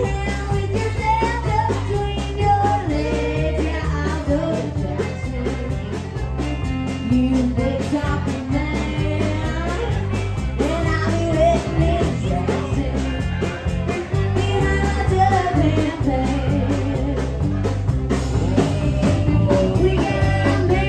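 Live band playing with a woman singing lead into a microphone, backed by electric guitar, bass and drums keeping a steady beat.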